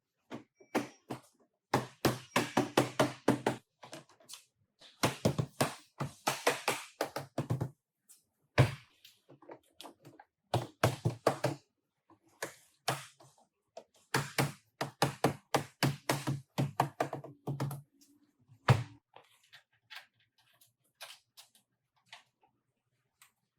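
Rapid knocking on car bodywork in bursts of several strikes a second, with short pauses between bursts; near the end only a few faint ticks remain.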